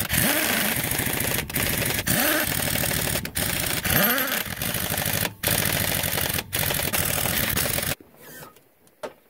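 Impact wrench hammering UTV wheel lug nuts tight. It goes in about six rapid rattling bursts with short gaps, the motor winding up and down, and stops about eight seconds in.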